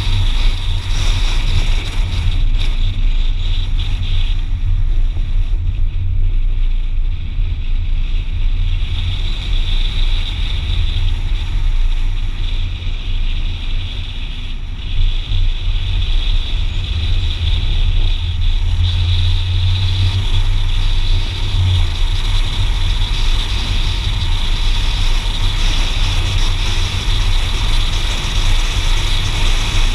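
A car driving, heard from inside the cabin: a steady low engine and road rumble with a constant hiss above it, easing slightly for a few seconds about halfway through.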